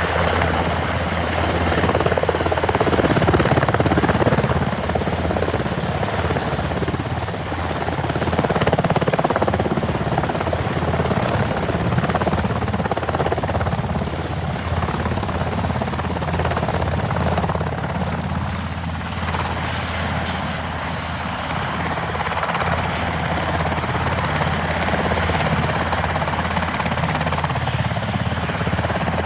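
Irish Coast Guard Sikorsky S-92 search-and-rescue helicopter, its rotors and turbine engines running steadily.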